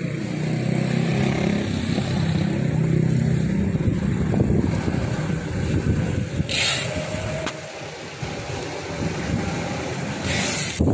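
Street traffic: a motor vehicle's engine running close by, its low hum fading after about four seconds. Two short bursts of hiss come around the middle and near the end.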